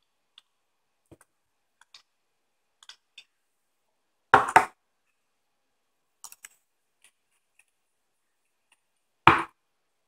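Small metal clicks and handling noises from a rebuildable dripping atomizer being taken off an ohm meter and handled, with two loud knocks of metal parts set down on a wooden tabletop, one about four seconds in and one near the end.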